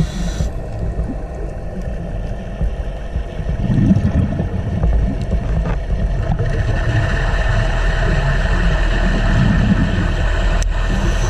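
Underwater ambience picked up by a camera in the water: a steady low rumble with a fainter hiss above it, getting a little louder about four seconds in.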